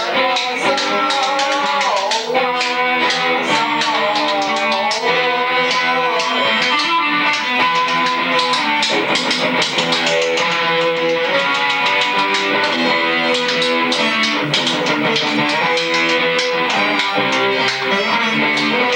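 Electric guitar playing rock music, steady picked and strummed chords without vocals.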